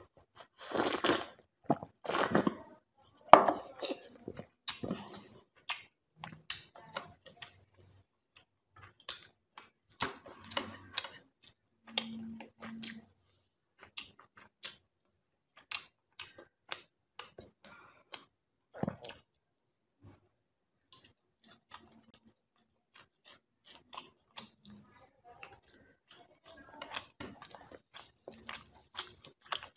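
Close-up eating sounds: a person chewing a mouthful of rice and fish curry, with wet mouth clicks and lip smacks coming irregularly. A few louder, fuller wet mouth noises come in the first few seconds.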